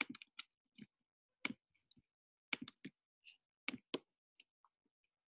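Faint, scattered clicks of a computer mouse and keyboard, some in quick pairs, with silence between.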